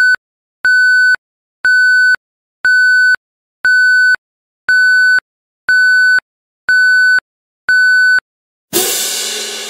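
Countdown timer sound effect: a steady electronic beep repeating about once a second, each beep about half a second long, nine in all, as the time to answer runs down. Near the end, a single cymbal crash rings out and fades.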